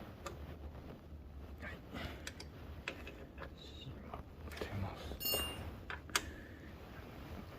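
Metal hand tools being handled and set down: light clicks and clinks, with a ringing metallic clink about five seconds in and a sharp click just after, over a low steady hum.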